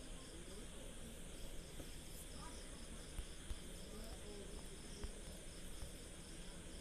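Faint background ambience of insects chirping in a steady, even high-pitched rhythm, with faint voices talking in the background and a couple of soft knocks.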